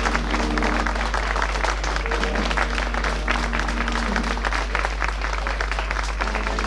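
Dance music with held melody notes, accompanying costumed couples dancing, over steady clapping from the onlookers.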